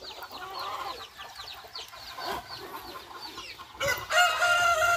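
Chickens clucking and peeping in a string of short, high, falling calls, with a rooster crowing loudly in one long held call starting near the end.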